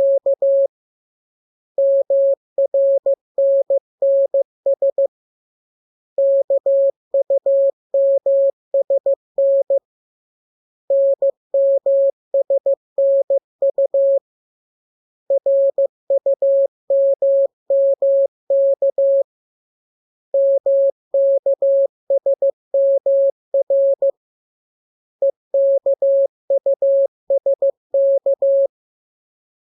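Morse code practice tone keyed in short and long beeps at a single steady pitch, sending code groups of the lesson's letters K, M, U, R, E, S and N. The groups last about three seconds each, with a short pause between them.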